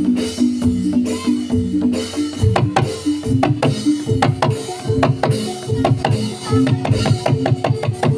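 Javanese Jathilan accompaniment music played live through a sound system: drums beat a quick, even rhythm over ringing tuned metal percussion, and a low bass line comes in about two and a half seconds in.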